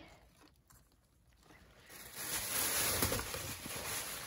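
Soft rustling of paper trading cards being handled and leafed through in a stack, starting about two seconds in after a near-quiet moment.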